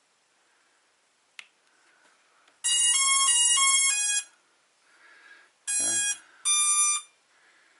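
Hubsan Zino Mini SE drone playing its electronic power-on tune, a quick run of stepped notes lasting about a second and a half. A couple of seconds later come two separate beeps as the remote controller is switched on.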